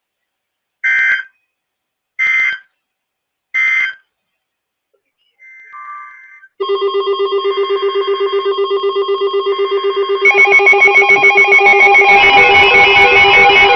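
Three short bursts of Emergency Alert System SAME end-of-message data tones, a harsh digital warble, sent about a second and a half apart to mark the end of the weather radio warning. About six and a half seconds in, music begins: a sustained, pulsing chord that gets louder about ten seconds in.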